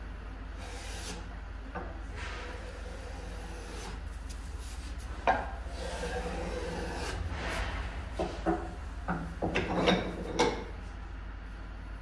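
Small brass hand plane shaving the edge of a wooden cutting board in a series of short scraping strokes, light at first and stronger from about halfway through.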